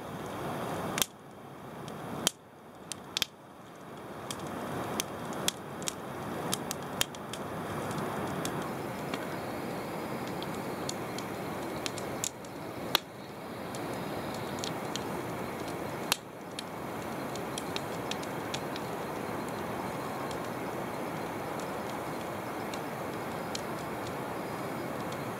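Wood campfire burning, crackling with sharp pops over a steady rushing background. The pops come thick and fast for the first several seconds, then more sparsely.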